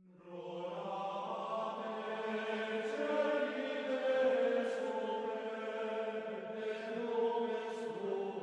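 Slow, droning chant of voices: a steady low note under held higher notes that shift every second or so, fading in at the start.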